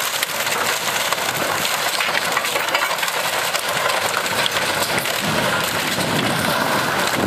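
Heavy machine's engine running under a dense clatter of cracking and crunching debris, typical of a wooden house being torn down.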